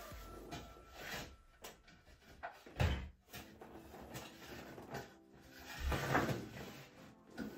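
Dull knocks and clatters of a manual wheelchair's parts being handled, with two heavier thumps about three and six seconds in.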